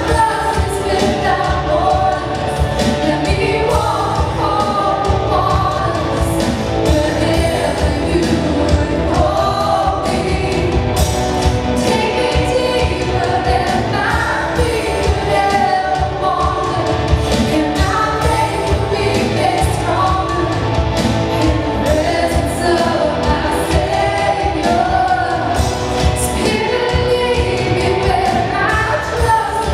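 Live worship band playing and singing a slow song: vocals over electric guitar, bass, drums and violin, with a steady beat.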